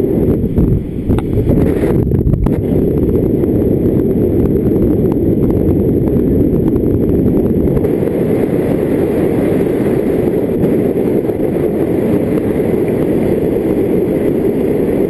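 Steady rush of airflow buffeting the microphone of a paraglider pilot's camera in flight, a loud, even low rumble.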